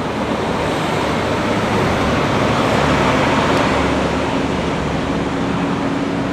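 A lorry passing on the road, its noise swelling to a peak about halfway and easing off, with a steady engine drone that comes in a couple of seconds in.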